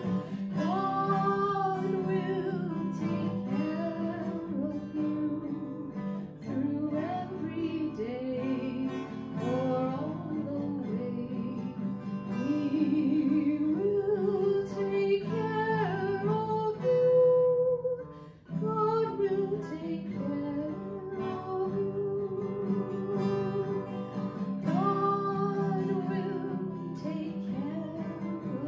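A woman singing a worship song while strumming an acoustic guitar, with a brief pause about two-thirds of the way through.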